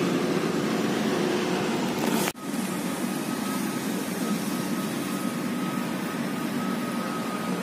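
Steady hum of city road traffic, cut off sharply for a moment about two seconds in.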